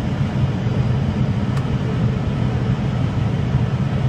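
Steady cockpit noise of an Airbus airliner on final approach: a low engine hum under an even rush of airflow.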